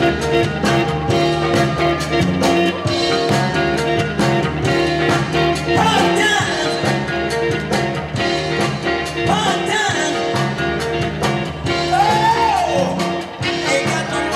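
Music with a singing voice over a steady beat; the sung notes slide up and down in places.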